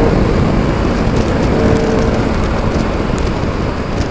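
Wind rush and road rumble on an action camera mic while riding a Bajaj Pulsar RS200 motorcycle, with its engine note showing through faintly now and then. The bike still has its stock exhaust.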